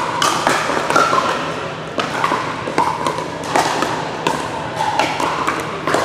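Pickleball paddles striking the hollow plastic ball: irregular sharp pops, about one or two a second, echoing in a large gym hall, with hits from neighbouring courts mixed in.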